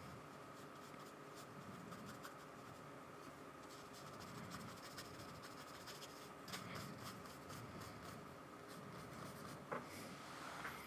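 Faint, irregular scratching and dabbing of a paintbrush on sketchbook paper as acrylic paint is worked in.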